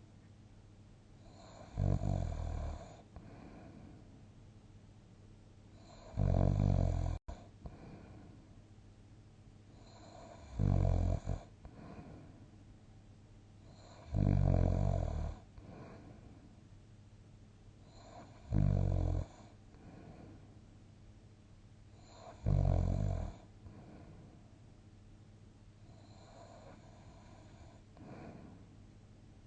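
A sleeping person snoring: a loud, low snore about every four seconds, six in a row, with quiet breathing between them and a fainter snore near the end.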